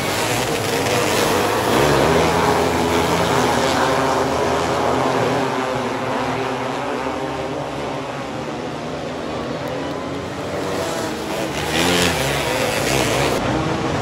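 A pack of winged micro sprint race cars running on a dirt oval, several engines revving up and down together as they circle the track.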